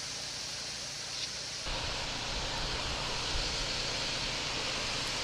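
Wind on the microphone outdoors: a steady hiss that turns louder about two seconds in, with a gusty low rumble.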